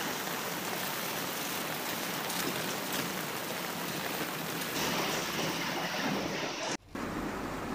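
Steady rain falling on a paved path and the plants along it, an even hiss of drops. It cuts out for a moment about seven seconds in, then resumes.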